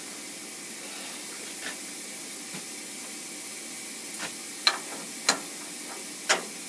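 Steady hiss of a running milling machine setup, with three sharp clicks in the last two seconds as a hand works at the vise.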